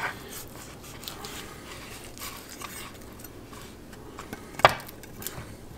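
Kitchen knife cutting around an avocado and the fruit being twisted apart over a wooden cutting board: soft scraping and handling with small clicks, and one sharp knock about four and a half seconds in.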